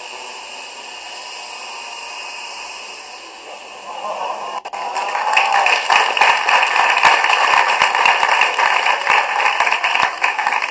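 Small quadcopter's rotors whirring steadily as it hovers with a pole balanced on top. About four seconds in, audience applause breaks out and runs on, louder than the rotors. All of it is played back through a laptop speaker.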